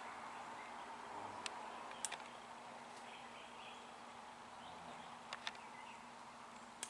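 Faint outdoor ambience: a steady soft hiss with a low hum underneath, broken by a few small clicks about a second and a half, two seconds and five seconds in.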